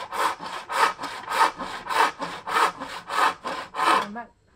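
Traditional Chinese frame saw cutting through a curved timber section by hand, in quick, even push-pull strokes, about three a second. The sawing stops near the end.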